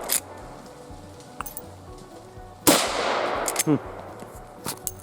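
One shot from a Rossi R92 lever-action rifle in .357 Magnum, a sharp crack with a reverberating tail. About a second later come quick metallic clacks, the lever being worked to chamber the next round. A few lighter clicks come before and after.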